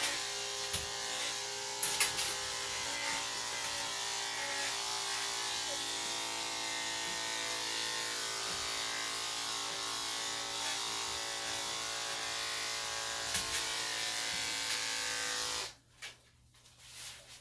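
Electric dog grooming clippers running with a steady hum, with a few brief knocks, then switched off near the end.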